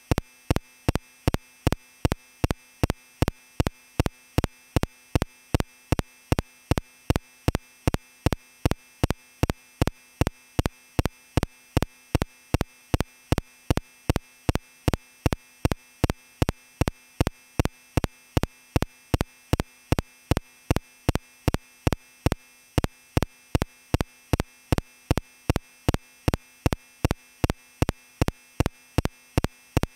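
Short electronic beeps repeating evenly, about three a second, each the same.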